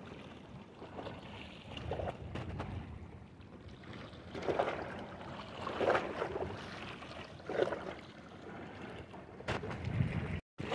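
Wind on the microphone and sea waves washing on the shore, a steady noise with a few brief louder surges.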